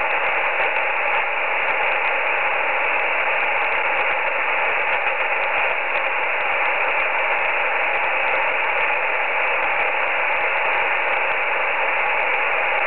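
Shortwave receiver in upper sideband putting out steady hiss and static on an idle radiotelephone channel between transmissions, with a faint steady tone underneath.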